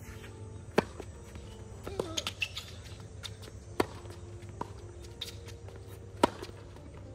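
Tennis balls being struck by rackets in a rally: a sharp serve hit about a second in, then further strokes and bounces, with another loud racket hit near the end, over a steady low background hum.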